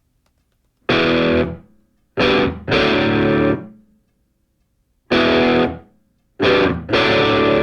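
Distorted electric guitar playing heavy chords in short stabs with silent gaps between them, each chord ringing out and fading over about half a second.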